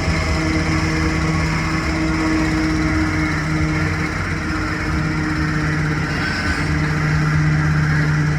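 Hrubetz Hurricane carnival ride running: a steady mechanical hum with a held low tone that swells a little now and then.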